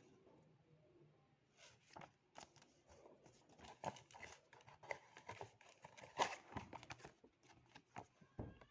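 Product packaging being torn open and crinkled by hand: a run of irregular crackles and rips, loudest about six seconds in.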